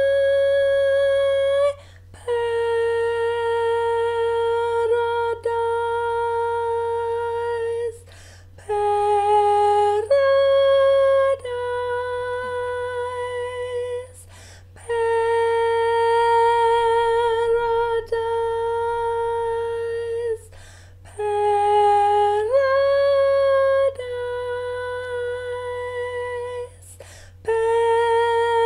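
A woman singing solo without accompaniment in long held notes, each phrase several seconds long, with short breath pauses about every six seconds.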